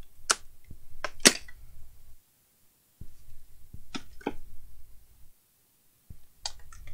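Scattered sharp clicks and knocks of hard plastic items and cables being handled while rummaging for a laptop charger, the loudest about a second in, with short quiet gaps between.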